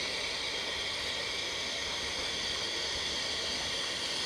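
Steady hiss of steam from the South Eastern & Chatham Railway P Class tank engine No. 323 'Bluebell' as it approaches, with no clear exhaust beats.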